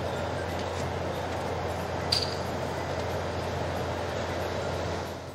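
Steady low rumble of vehicle noise with a hiss over it, and one brief sharp click about two seconds in.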